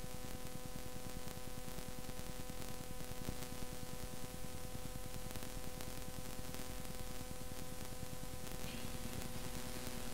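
Steady hiss and low hum of an old analogue concert recording, with a faint sustained note held underneath. Soft orchestral and choral sound comes back in near the end.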